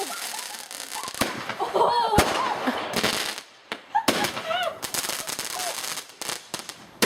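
Consumer fireworks going off: a string of sharp bangs and cracks with hissing and crackling between them.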